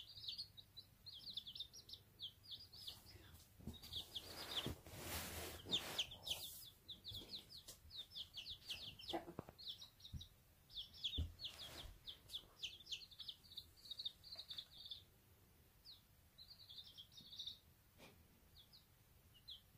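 Day-old chicken chicks peeping: a steady stream of quick, high, falling cheeps that thins out after about fifteen seconds. A short noisy rush a few seconds in and a couple of soft knocks near the middle.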